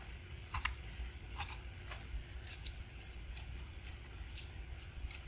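Kitchen knife cutting a tomato on a wooden cutting board: a few light, irregular clicks of the blade meeting the board, most of them in the first three and a half seconds.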